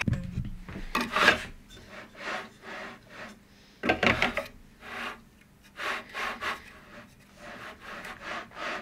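A 3D-printed plastic CNC Z-axis carriage on V-wheels, pushed back and forth by hand along its aluminium profile: repeated rolling, rubbing strokes about once a second, quicker near the end. There is a knock at the start and another about four seconds in.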